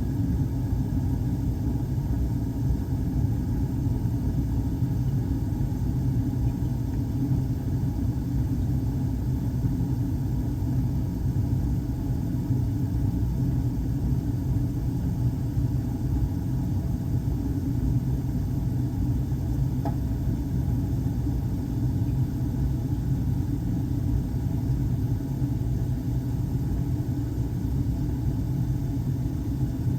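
Steady low rumble of HVAC equipment running, with one faint brief tick about twenty seconds in.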